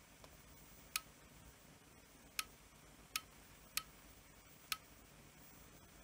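Five light, sharp clicks at uneven intervals from a Sony RMT2100 remote control being operated as its buttons are pressed.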